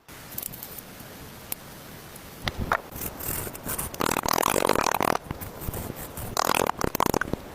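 Rough rasping scrapes: a few short ones, then two longer ones of about a second each, a second or so apart.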